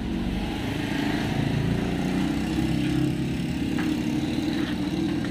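An engine running steadily at a constant speed, a low even hum with no change in pitch.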